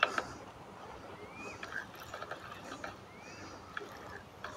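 Spinning reel being worked by hand while a hooked carp is played in: faint scattered mechanical clicks, with a sharper click at the very start.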